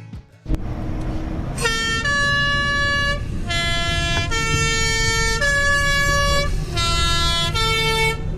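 A vehicle air horn playing a short tune of about seven held notes, each lasting up to a second and stepping between a few pitches. A low engine rumble runs underneath.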